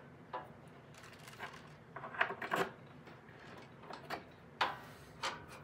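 A few light clicks and knocks of metal being handled as a homemade spring compressor (a piece of angle iron on a threaded rod) is set into the steel drive housing of a Snapper walk-behind mower. The sharpest knock comes about four and a half seconds in.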